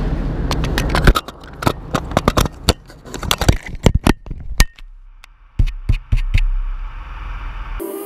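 Sharp clicks, knocks and scrapes of fingers handling an action camera in its plastic housing and mount, heard close up through the camera's own microphone. The clicks come thick for the first four seconds or so and thin out, leaving a low steady hum.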